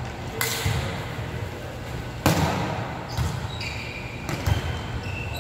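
Volleyball rally in a gym: the ball is struck a few times, each hit a sharp slap that rings on in the large hall, the loudest about two seconds in. Short high sneaker squeaks on the court come near the end.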